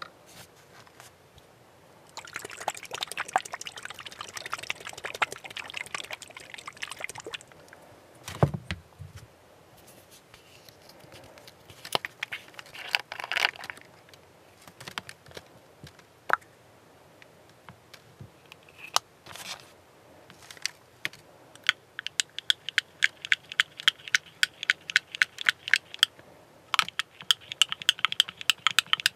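Handling sounds from model-painting work: several seconds of scraping and rustling with fine ticks, a dull thump, then scattered clicks. Near the end come two runs of rapid, even clicking, several a second, like a small hard object rattling against a container or a tool.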